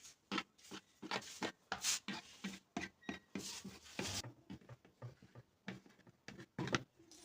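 Glue being spread onto the lip of a car door subwoofer speaker's surround for a repair: short, irregular rubbing and tapping strokes of the applicator, a few a second.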